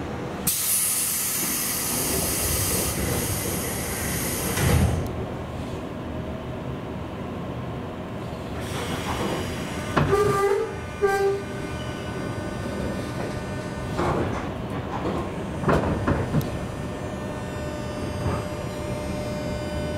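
JNR 201 series electric train: the doors close with a hiss of air, ending in a heavy thud about five seconds in. About ten seconds in the train pulls away with a few clunks, and the armature chopper control's steady buzzing hum of several tones sets in under the running noise.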